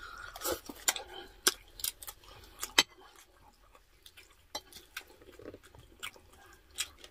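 Eating sounds: a spoon and fork scraping and clinking on a plate, with chewing and mouth clicks, heard as scattered irregular clicks.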